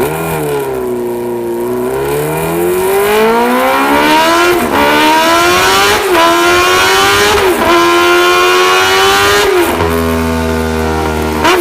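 BMW S1000 RR inline-four engine and exhaust accelerating hard through the gears. The pitch climbs, then drops sharply at each of four upshifts, and holds steadier near the end.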